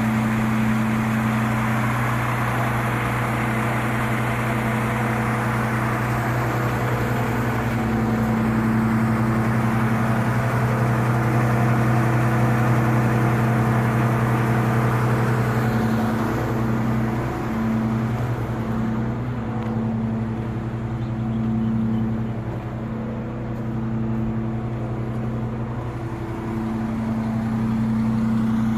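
Tadano GT550E truck crane's diesel engine running steadily at low revs, a constant hum that wavers slightly past the middle.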